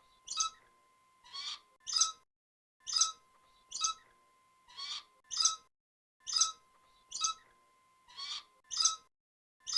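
Rat squeaking: short, sharp, high squeaks about once a second, in a pattern that repeats every few seconds, over a faint steady tone.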